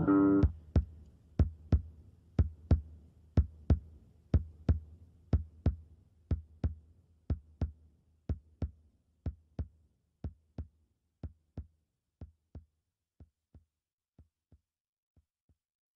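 Background music ending on a drum-machine beat: sharp doubled strokes about once a second, like a heartbeat, slowly fading away until they stop near the end.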